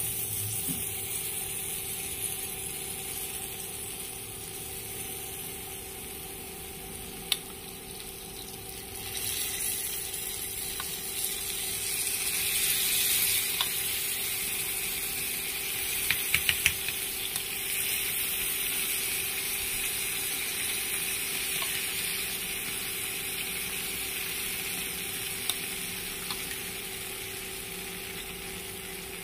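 Soy-sauce and chilli dressing sizzling as it is spooned onto clams on a hot pan, the hiss swelling about nine and again about twelve seconds in. A few sharp clicks cut in, with a quick run of them about sixteen seconds in.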